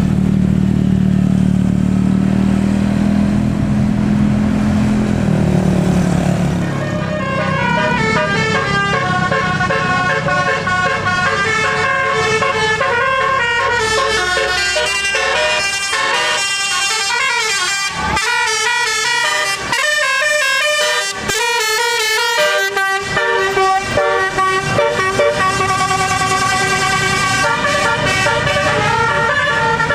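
A bus's multi-tone 'telolet basuri' musical air horn playing a tune of quickly stepping notes, starting about seven seconds in and running on. Before it, a low steady drone, likely the bus engine.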